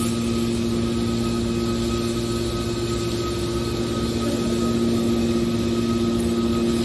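Aluminium-can baler's motor and hydraulic pump running with a steady hum and a constant whine.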